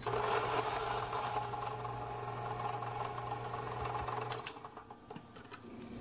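Fellow Ode coffee grinder with 64 mm steel flat burrs grinding a dose of coffee beans with its lid on: a steady motor hum under the gritty crunch of beans going through the burrs. The grinding stops about four and a half seconds in.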